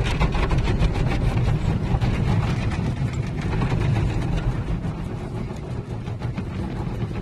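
Automatic car wash cloth brushes scrubbing across the windshield with water spray, heard from inside the car: a steady low rumble with rapid slapping.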